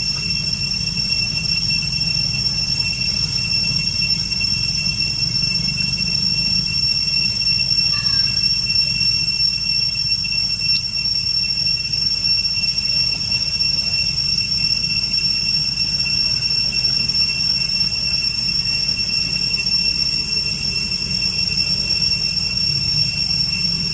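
Steady, high-pitched drone of forest insects such as cicadas, several constant shrill tones that hold without a break, over a low steady rumble.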